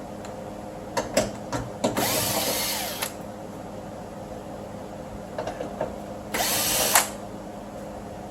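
Power drill spinning out the 10 mm mounting bolts of a car door's window regulator in two short runs, the first about a second long and the second about half a second, with a few sharp metal clicks before the first run.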